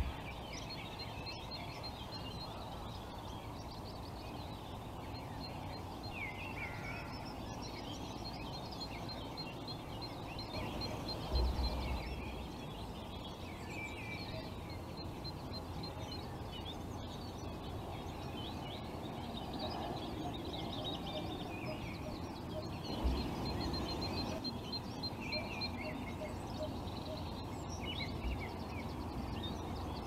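Mixed wild birdsong: several small birds chirping and singing over a steady rushing background noise, with two brief low thumps, one about a third of the way in and one about three quarters through.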